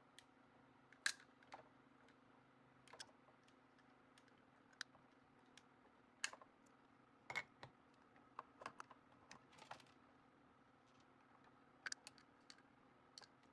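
Irregular light clicks and taps of plastic and metal as a one-gang smart switch is handled and screwed onto its wall pattress box, over a faint steady hum.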